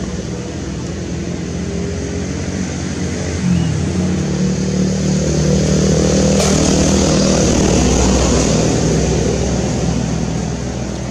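A motor vehicle's engine running steadily close by, stepping up in pitch and level about three and a half seconds in, loudest through the middle and easing slightly near the end.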